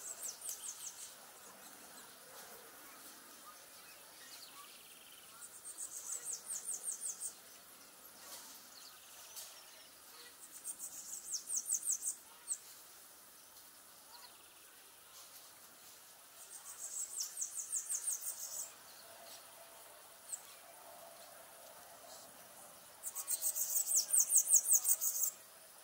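An insect calling in high, rapidly pulsed bursts of about two seconds each, repeated every five or six seconds. Each burst swells and then cuts off abruptly, and the last one, near the end, is the loudest.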